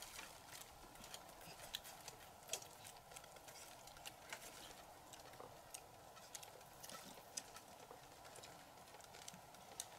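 Faint, irregular clicks and smacks of people eating by hand: chewing and picking at baked chicken on plates, over a steady faint hiss.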